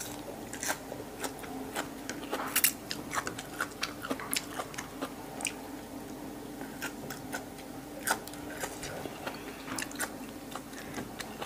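A person biting and chewing fresh green herb stems close to the microphone, with many irregular sharp crunches.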